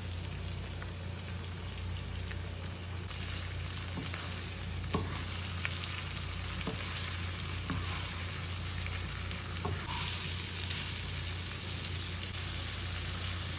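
Diced lamb liver, heart and kidneys frying with onion in lamb fat and ghee in a pan, a steady sizzle, with a few faint knocks as the meat is stirred.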